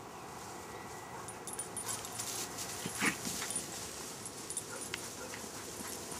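Working kelpie giving one short bark or yelp about three seconds in, over rustling and scuffling of movement through dry grass.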